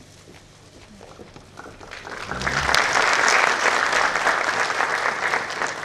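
Audience applauding. It starts about two seconds in, swells quickly, and begins to die away near the end.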